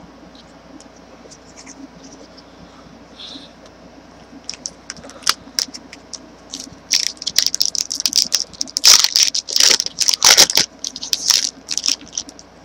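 Stiff trading cards being handled and pried apart where they are stuck together, making dry scraping and crackling. It starts about four seconds in and is loudest about two-thirds of the way through.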